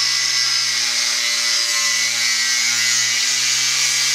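4-inch Harbor Freight angle grinder running steadily under load, its disc cutting through an aluminium engine bracket clamped in a vise, with a loud, even grinding hiss. The cut throws no sparks because the metal is aluminium.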